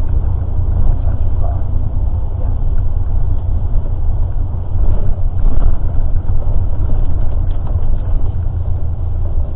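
Steady low engine and road rumble inside a moving tour bus.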